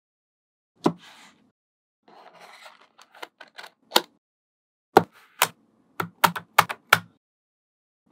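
Magnetic balls clicking as pieces are snapped onto a magnet-ball wall. One sharp click about a second in, a brief rustle of handling, then a loose cluster of small clicks. In the second half there is a quick run of about eight clicks.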